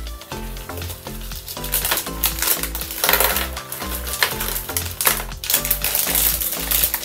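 Takis rolled tortilla chips spilling out of a crinkly foil snack bag onto a plate, a dense clatter of chips with the bag crinkling, loudest about three seconds in. Background music with a steady bass line plays underneath.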